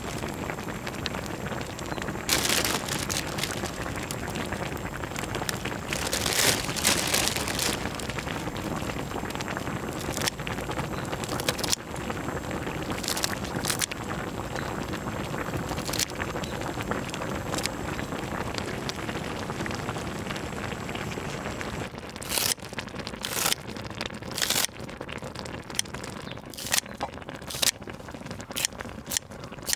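Pork neck bone stew boiling in a wide cast-iron cauldron-lid pan: a steady bubbling hiss with louder surges. Sharp clicks and snips of kitchen scissors and metal tongs come more often in the last several seconds.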